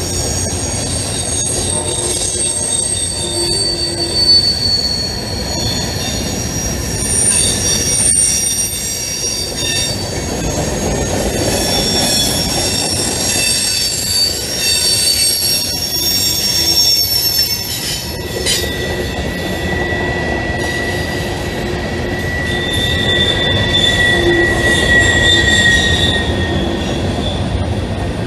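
Freight train cars rolling past: a steady rumble of wheels on rail with high-pitched wheel squeal, several shrill tones that come and go, and a lower squealing tone joining about two-thirds of the way through.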